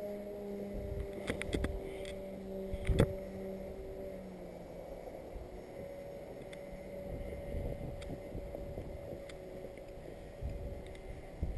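Distant hum of a twin-motor RC plane's D2826-6 2200 kV brushless motors driving 6x4 propellers in flight. Its fuller tone drops away about four seconds in and a thinner, steady tone carries on. Several sharp clicks are heard, the loudest about three seconds in, over low wind rumble on the microphone.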